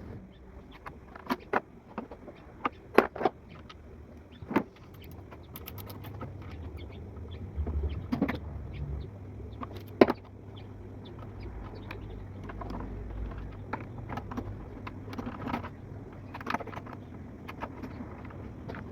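Scattered sharp metallic clicks and knocks, like hand tools and parts handled during work on a car's throttle body, over a low steady hum.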